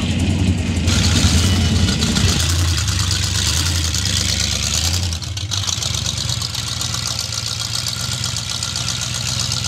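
Engine of a drag-style gasser car running at low revs as it rolls slowly past, with a steady deep rumble.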